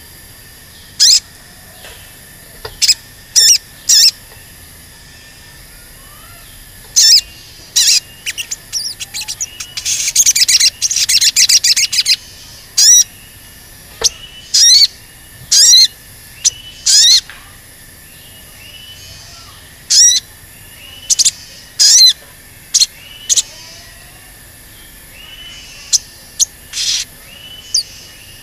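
Male olive-backed sunbird (sogon) calling: loud, sharp, high "cuit cuit" chirps at irregular intervals, with a fast rattling chatter about ten seconds in.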